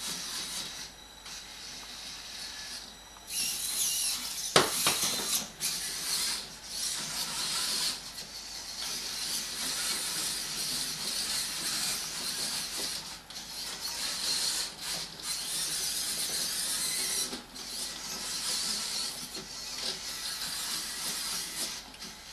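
A VEX robot's four omni-wheel drive motors running in spurts as it drives itself across a plastic tabletop: a high-pitched mechanical noise that starts and stops several times. A single sharp click about four and a half seconds in.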